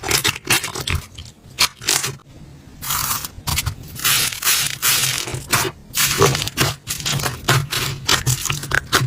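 Slime being squeezed and worked by hand, giving rapid crackling clicks and pops, with a few longer hissing stretches.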